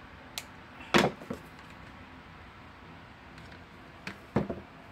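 A few sharp knocks and clicks of craft tools handled on a tabletop, scissors and a hot glue gun. The loudest knock comes about a second in, and a pair follows just after four seconds in.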